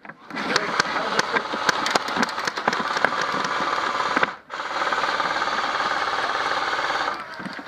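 Airsoft electric guns firing fully automatic: a long burst of rapid clicking shots, then about 4.5 s in an even, fast rattle of the gearbox cycling, lasting a few seconds before it stops.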